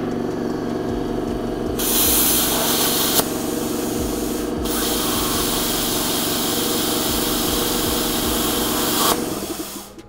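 Plasma cutter running with a steady hum, its arc hissing loudly as it cuts steel plate: a short spell about two seconds in, then a longer one from about five seconds in. Near the end the hiss and hum cut out together as the truck's outlet breaker trips under a load of about 6.5 kW.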